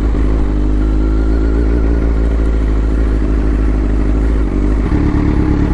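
Kawasaki Z900's inline-four engine with an Akrapovic exhaust running steadily under way, heard from the bike, with a change in engine note about five seconds in.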